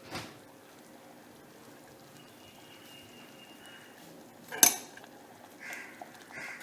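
A metal spoon knocking against a cooking pot: a light knock near the start and one sharp, loud clank a little past halfway, with softer sounds near the end.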